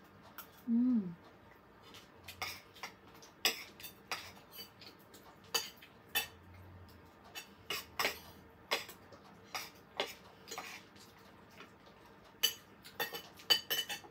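A metal spoon and fork clinking and scraping on a ceramic dinner plate while eating, in irregular sharp clicks that come thicker near the end. About a second in, a short low hum falls in pitch.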